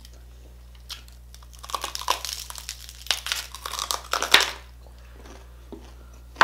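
Crisp, crackling skin of a deep-fried pork knuckle (crispy pata) crunching as it is torn apart by hand and bitten. A dense run of crackles starts about a second and a half in and ends in one loud crack about two thirds of the way through.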